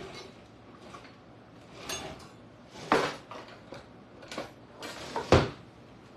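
Hands rummaging through a kitchen utensil drawer: utensils clattering against each other in several separate rattles, with a heavier knock near the end.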